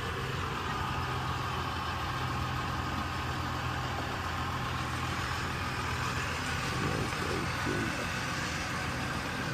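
A vehicle engine idling steadily, an even low hum that does not change, with faint voices in the background near the end.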